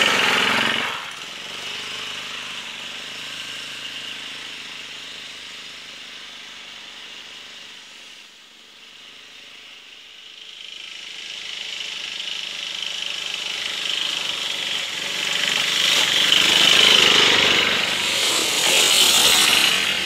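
Off-road motor scooter's small engine passing close by and fading into the distance, then growing louder again as the scooter comes back, loudest near the end.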